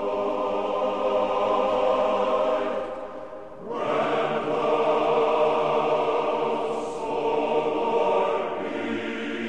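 Background choral music: voices holding long sustained chords, with a brief drop about three and a half seconds in before a new phrase swells in.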